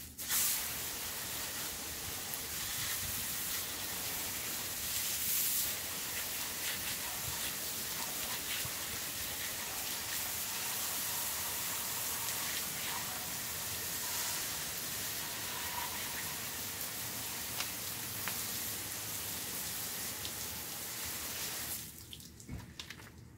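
Garden hose spray nozzle spraying water onto catfish hung from a tree, rinsing them down as they bleed from their cut tails. A steady spray with a couple of louder surges in the first few seconds, cutting off about a second before the end.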